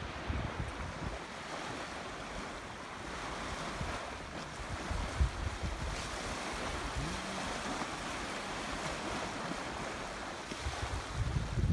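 Steady rushing outdoor noise with irregular low buffeting of wind on the microphone.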